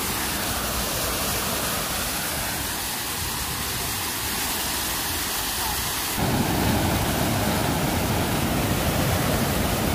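Water rushing over and through the wooden gates of a canal lock as the lock chamber fills, a steady heavy splashing of falling water. About six seconds in it becomes louder and deeper.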